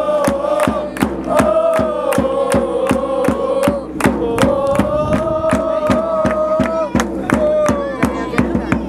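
Football supporters chanting together in long, held notes over a steady beat of about four strikes a second.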